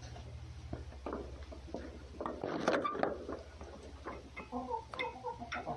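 Red fox gekkering: a run of rapid sharp clicks and short stuttering chattering calls, the calls bunched together in the second half.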